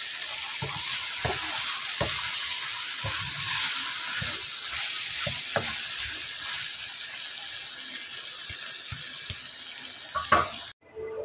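Sliced ridge gourd (luffa) with onion and tomato sizzling in an oiled pan, with a wooden spatula scraping and knocking against the pan as it is stirred. The sound cuts off suddenly near the end.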